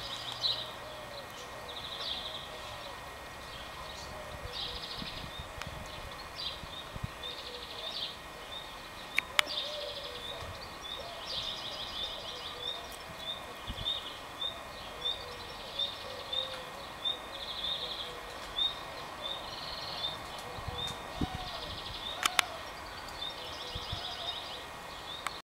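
Cicadas singing outdoors in repeated high, buzzy phrases of under a second each, with a run of short regular chirps alongside and two sharp clicks, about nine seconds in and near the end.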